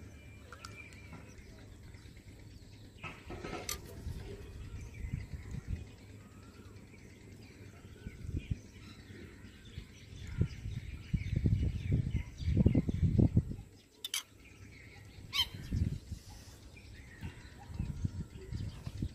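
A few short bird chirps over a low, rumbling outdoor noise that swells loudest between about ten and thirteen seconds in.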